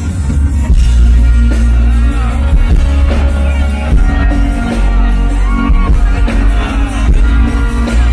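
Rock band playing live on stage, loud, with acoustic and electric guitars over heavy bass and drums.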